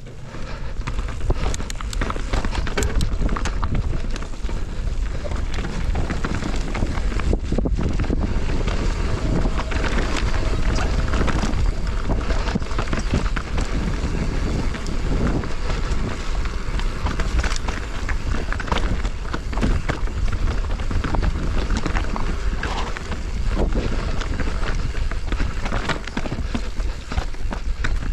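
Wind buffeting the action camera's microphone as a mountain bike rolls fast downhill, with a steady low rumble and many quick clicks and knocks from the tyres and bike rattling over bumps.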